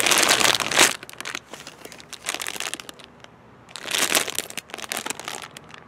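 Wrapping paper and tissue crumpling as a gift is torn open, and a plastic bag of Haribo gummies crinkling as it is handled. The rustling is loudest in the first second and again about four seconds in.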